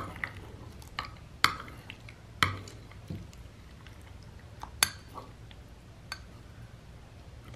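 Metal spoon stirring thick glue-and-borax slime in a ceramic bowl, clinking sharply against the bowl at irregular moments, with quieter scraping between the clinks.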